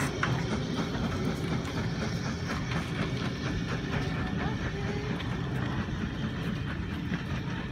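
Steam-hauled train, led by the locomotive Twizell, running along the track with a steady clatter of wheels over the rails.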